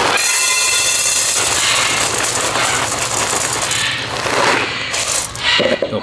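Dry parrot pellets poured in a stream into a feeding bowl, a dense rattling of many small hard pieces that thins out after about four and a half seconds.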